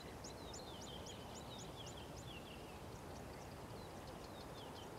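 Faint bird calls: a rapid series of short high chirps, about three a second, with lower down-slurred notes between them, over a soft steady background of bush ambience.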